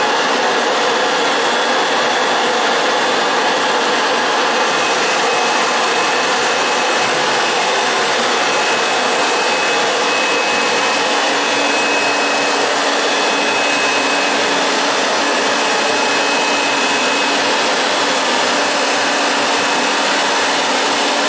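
Homemade wood-gasification burner running: a loud, steady rushing noise of forced air and burning gas, with a faint high whine through the middle of it.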